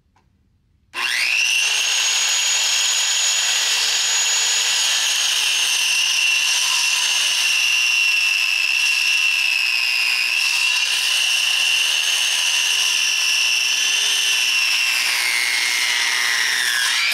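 Handheld circular saw starting up about a second in and running with a steady high whine as it cuts 2x6 lumber. The pitch dips briefly midway and sags near the end as the blade is loaded.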